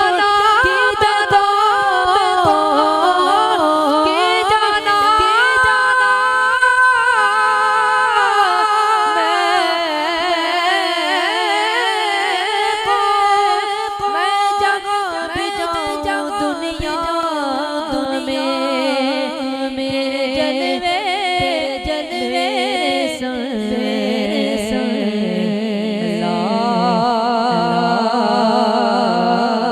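Sufi devotional singing: voices holding long, wavering notes with heavy vibrato, sliding from note to note without clear words. About 23 seconds in the melody drops to a lower register.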